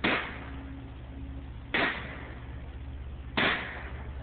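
Fireworks launching comets into the air one at a time: three sharp launch pops about 1.7 seconds apart, each tailing off quickly.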